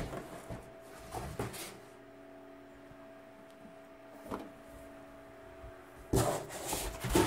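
Handling of a large cardboard shipping box and its contents. There is a knock as the rack server is lifted out, a few light knocks, then rustling and scraping of the cardboard from about six seconds in. A faint steady hum runs underneath.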